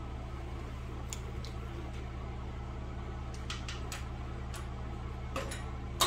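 Steady low shop hum with a few light metallic clicks as a locking C-clamp is handled and set on a steel frame cap plate, ending in one sharp, louder click.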